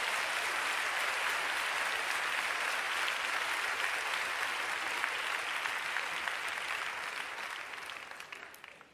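Audience applauding steadily, then fading out over the last couple of seconds.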